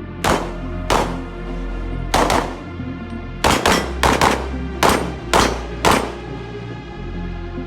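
A string of about ten handgun shots, unevenly spaced with some in quick succession, over background music; the shooting stops about six seconds in and the music carries on.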